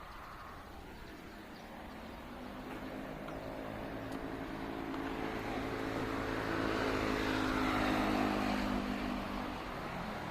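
A vehicle approaching and passing close by, its droning hum growing steadily louder, loudest about eight seconds in, then easing off.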